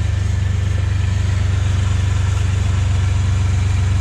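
Dodge Ram 1500 cargo van engine idling steadily with an even low rumble, just started after an oil change with fresh full-synthetic 10W-30.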